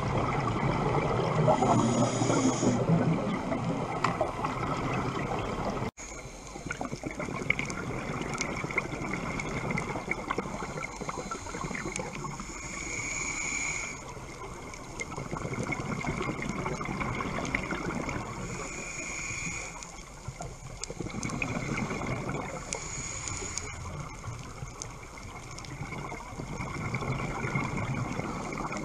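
Underwater scuba diving sound: a diver's regulator breathing, with exhaled bubbles gurgling in swells every few seconds. There is a sudden break about six seconds in.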